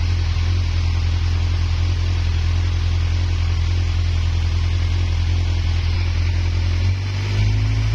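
Kawasaki Z1000's 1043 cc four-cylinder engine idling steadily, heard at its exhaust outlets. About seven seconds in, the revs lift slightly.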